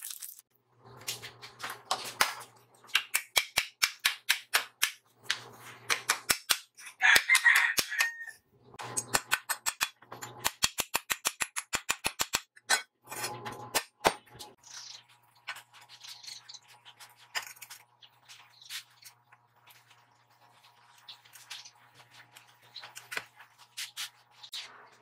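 Short bursts of stick-welding arc crackle with a low hum under it, alternating with rapid runs of chipping-hammer strikes, about five a second, knocking slag off the fresh welds on steel plate. The last ten seconds are quieter, with only light clinks of steel parts being handled.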